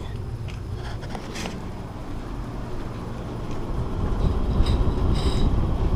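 Air blowing from an air-conditioning supply vent: a steady low rushing rumble that grows louder about four seconds in, with a few light clicks.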